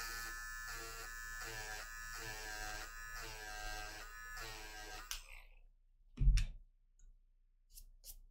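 Small electric eraser buzzing for about five seconds, its tone wavering in a regular pulse as it is rubbed on the paper to lift out a highlight, then switched off. A dull thump follows about a second later, then a couple of faint clicks.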